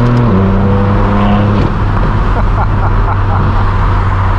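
Straight-piped BMW M4 F82's twin-turbo inline-six, running steadily at freeway cruise with a loud, even exhaust note. The note steps down in pitch once shortly after the start, as on an upshift, and its higher tones fade a little about a second and a half in.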